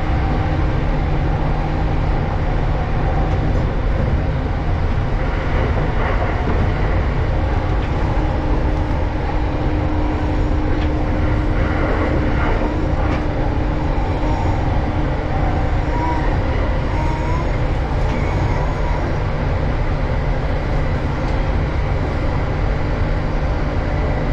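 Running noise heard inside a JR East Tokaido Line electric commuter train at speed: a steady rumble of the wheels on the rails, with a faint low hum.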